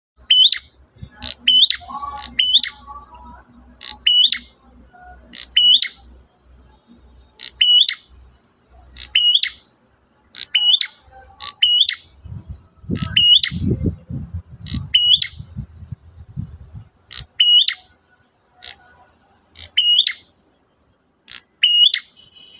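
Prenjak merah (a small prinia-type songbird) calling: short, sharp chirps repeated about once a second at an uneven pace. A low rumble sits under the calls for a few seconds in the middle.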